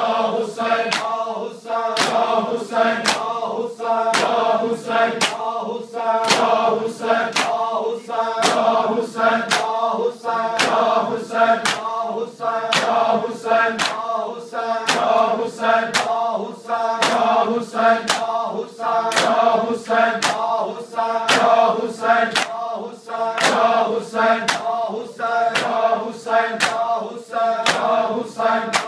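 Men chanting a noha in unison while beating their chests with open hands in matam, the sharp slaps falling in a steady, even rhythm over the chant.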